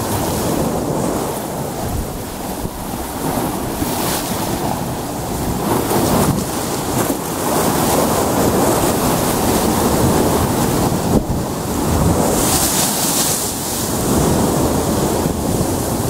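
Choppy sea waves surging and breaking against rocky shore, a steady rush of foaming water that swells and eases, with wind buffeting the microphone. One wave breaks with a brighter, hissing splash late on.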